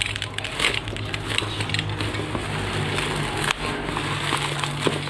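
Bubble wrap crinkling and crackling as it is handled and pulled open by hand, with a steady low hum underneath.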